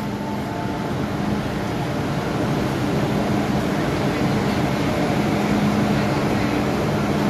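MTR M-Train electric multiple unit running, a steady rumble of wheels and running gear with a low hum from the motors, growing slightly louder.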